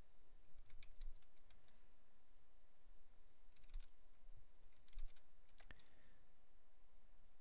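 Computer keyboard typing in three short bursts of keystrokes, the last followed by a single sharper key strike.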